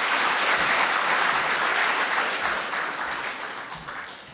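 Audience applauding. The clapping holds steady, then dies away over the last second or so.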